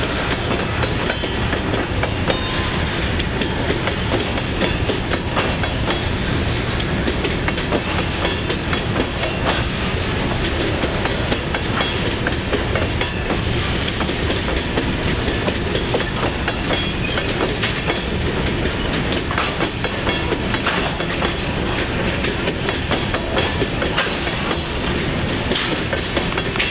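Freight train of covered hopper cars rolling past, a steady rumble of steel wheels on rail with frequent sharp clicks as the wheels cross rail joints.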